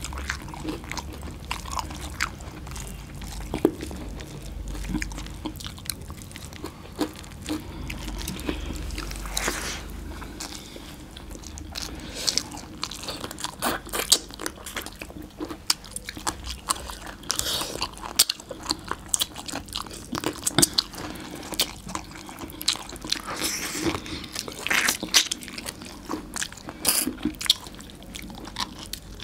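Two people eating rice and mutton curry with their hands, heard close up: chewing and crunching mouthfuls, with many short irregular clicks and wet squishes from mixing and biting the food.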